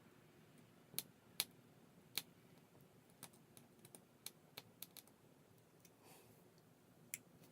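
Irregular light clicks and taps of small tools and phone parts being handled during an iPhone 5s repair. Three sharper clicks come in the first two seconds, fainter ones follow, and one more comes near the end.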